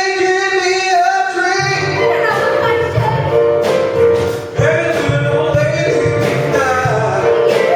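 Stage musical number: a held chord, then from about a second and a half in a band with a steady bass line and drum hits joins under singing.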